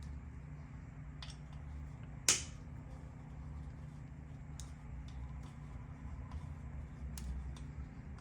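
Scattered light clicks from handling hand tools and engine parts, with one sharp click a little over two seconds in, over a steady low hum.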